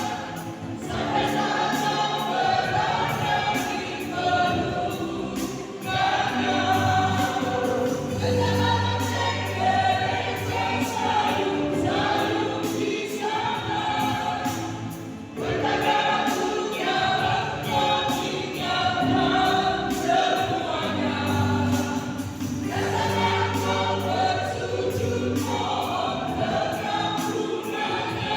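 Choir singing a church song in parts, with sustained notes and brief pauses between phrases.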